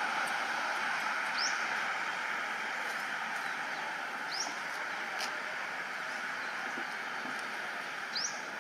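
Steady outdoor background hiss with a small bird giving a short, high chirp three times, a few seconds apart.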